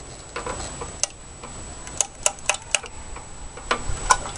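Irregular light clicks and taps, about a dozen of them, from a small plastic bottle of two-stroke fuel being squeezed and handled against a lawn mower engine.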